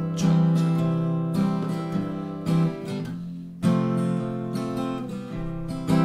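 Steel-string acoustic guitar played with a pick in a country boom-chick pattern: a bass note followed by two strums on the treble strings, repeated in a steady rhythm.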